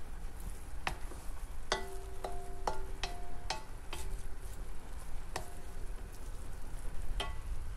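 A metal utensil knocking against a cooking pan while pancit canton and sotanghon noodles are mixed in pork stock: about nine irregular clinks, several ringing briefly with a clear tone, over the steady noise of the noodles cooking.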